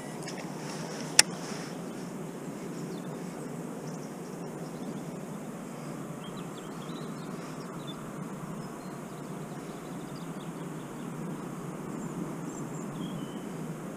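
Steady outdoor background rush with a single sharp click about a second in and a few faint bird chirps later on.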